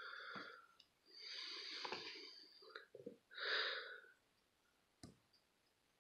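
A person breathing and sniffing close to the microphone in several short breaths, the longest lasting about a second and a half, followed by a single sharp click about five seconds in.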